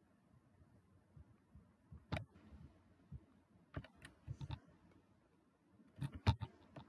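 Computer keyboard keys clicking as text is deleted: a few single presses spread out, then a quick run of several presses near the end.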